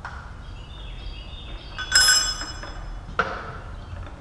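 Two ringing metal clanks at the drawbar on top of a Lagun knee mill's spindle, about a second apart; the first is the louder, with a bright ringing tail.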